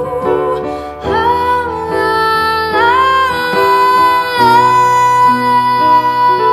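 A song: a woman sings long, held notes with vibrato over instrumental accompaniment.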